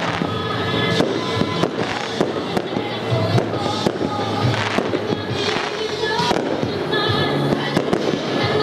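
Aerial firework shells bursting in frequent sharp bangs and crackles, over music with a singing voice.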